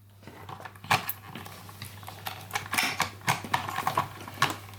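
Plastic toy pieces of a farm play set clicking and knocking irregularly as they are handled, with one sharper knock about a second in.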